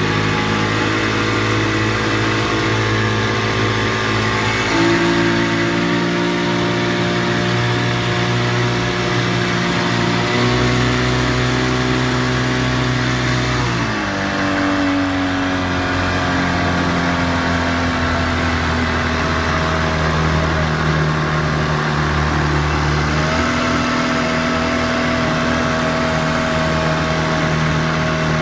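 1951 Mercury KG-4 Hurricane 7.5 hp two-stroke outboard motor running under way, pushing the boat. Its steady note steps up in pitch about five seconds in, drops about halfway through, and rises again near the end.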